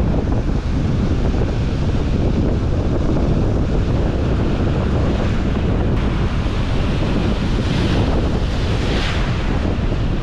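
Strong wind buffeting the microphone over the steady wash of ocean surf on the shore.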